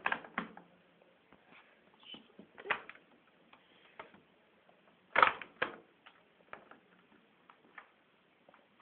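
Indesit WIL105 washing machine starting a wash cycle: irregular mechanical clicks and knocks, with one louder knock about five seconds in.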